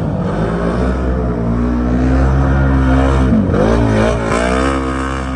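Off-road race vehicle's engine running hard under throttle. Its pitch drops and climbs back about three and a half seconds in, and again shortly after, as the throttle is let off and reopened.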